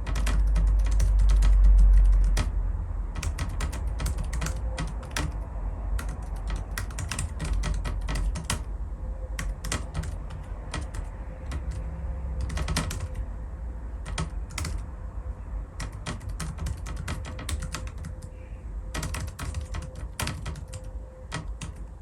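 Fast typing on a Rapoo 9000M mobile keyboard: quick runs of key clicks with short pauses between them. A low rumble sits under the clicks for the first two seconds.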